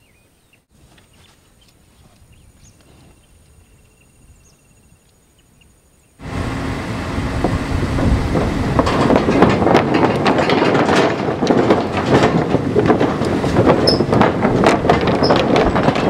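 Loose wooden planks of a bridge deck clattering and rumbling under a vehicle's tyres as it drives across. The sound starts suddenly about six seconds in, after a quiet stretch, and runs on as a dense, irregular knocking of the boards.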